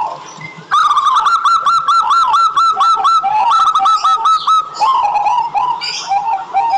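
Zebra dove (perkutut) singing: one arched note, then a fast run of short, clipped, evenly repeated cooing notes, about five a second, lasting about four seconds, then slower, lower notes.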